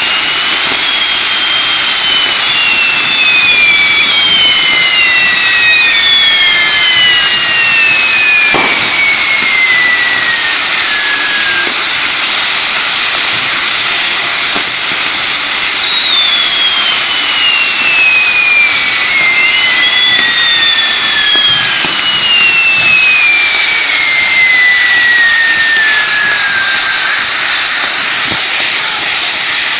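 Fireworks castle tower with its spinning fire wheels burning: a loud, steady hiss of burning pyrotechnic composition, with five long whistles that each glide slowly down in pitch over several seconds, and a single sharp crack about eight seconds in.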